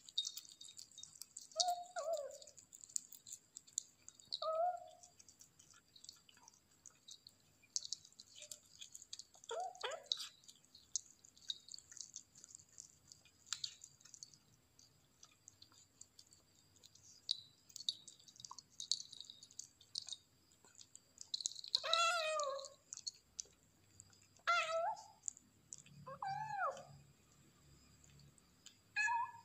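A kitten eating chicken liver, the two small bells on its collar jingling as it chews and tugs at the food, with short meows every few seconds and a closer run of four near the end.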